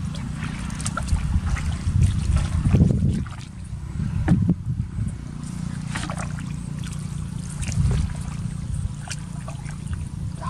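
Shallow muddy water sloshing and splashing as a person wades and gropes through it by hand, with many short splashes over a steady low rumble.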